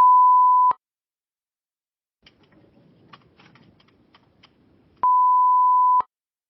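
Two loud, pure one-second beeps at a single pitch, the first at the start and the second about five seconds in, typical of censor bleeps laid over spoken digits in a phone call recording. Between them are faint clicks and low phone-line hiss.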